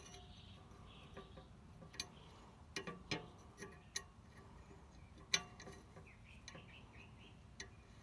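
Scattered sharp clicks and knocks as small bolts, parts and hand tools are handled and set down, with faint rustling between them; the loudest click comes about five seconds in.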